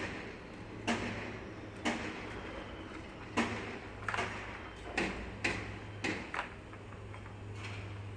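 Cat toy clicking and knocking as kittens bat and push it: a string of irregular sharp clicks, roughly one a second, over a steady low hum.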